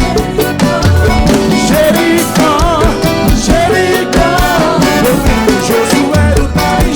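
A band playing an upbeat gospel song: a drum kit keeps a fast, steady beat under a wavering melody line.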